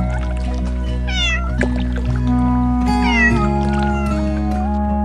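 Background music with steady held notes, over which a cat meows twice, each meow falling in pitch, about two seconds apart.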